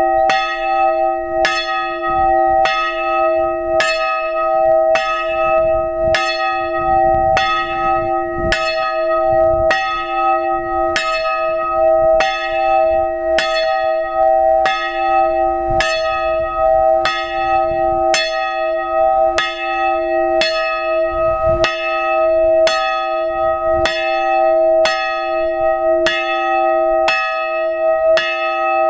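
A small hard-cast-iron church bell, tuned to e'', swung by hand with a rope. Its clapper strikes at a steady, even rate, and each stroke rings on under the next.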